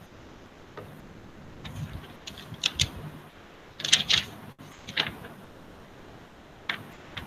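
Irregular clicking and tapping in short clusters, with the busiest bunch about four seconds in, over a low steady hiss.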